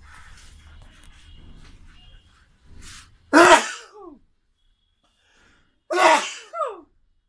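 Two loud sneezes about two and a half seconds apart, each a sudden burst that trails off falling in pitch; the second ends with a short extra catch.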